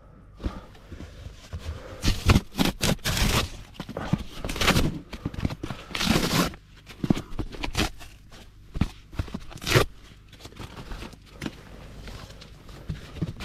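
Irregular bursts of rustling, scraping and crinkling, some sharp and some longer, loudest near 2 to 3 seconds in and again about 10 seconds in.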